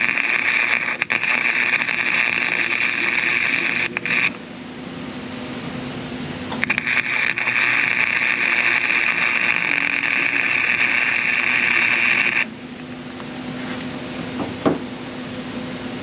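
MIG welder arc running in two stretches, about four seconds and then about six seconds after a short pause, as a nut is welded onto a broken exhaust manifold stud to pull it out. After the arc stops a steady low hum remains, with a single click near the end.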